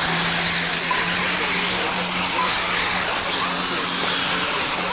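1/8-scale brushless electric RC buggies racing on a dirt track: a continuous electric-motor whir with tyre and track noise, over a steady low drone.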